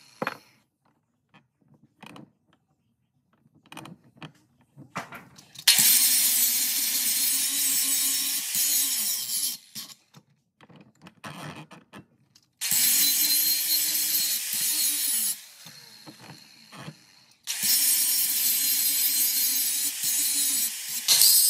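Angle grinder cutting scrap steel held in a bench vise, in three runs of a few seconds each, the motor winding down after the first two. Before the first run, about five seconds in, there are light knocks and clicks of the steel being handled in the vise.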